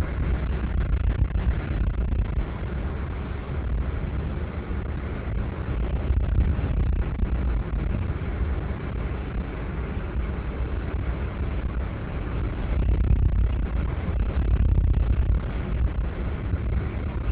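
Steady low rumble of a car driving at road speed, heard from inside the cabin: tyre, engine and wind noise that swells and eases a little without a break.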